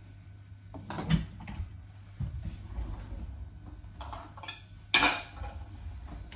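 Kitchen things being handled and set down on a countertop: a few separate knocks and clinks from a metal box grater and a ceramic bowl, the loudest clatter about five seconds in.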